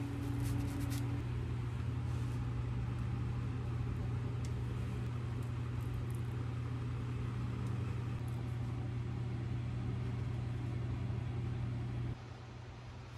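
Steady low hum of a running kitchen appliance, with a few faint clicks as food is placed with chopsticks and a seasoning shaker is tipped. The hum stops abruptly near the end.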